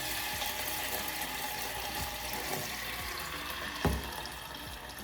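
Coconut cream sizzling in a pan, a steady hiss that slowly fades, with a single sharp knock just under four seconds in.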